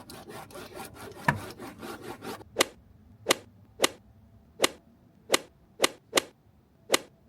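A hand roller being rubbed hard back and forth over foil-faced vibration-damping sheet on a car floor, pressing it flat. Quick scraping strokes for about two seconds, then about eight sharp clicks at uneven spacing.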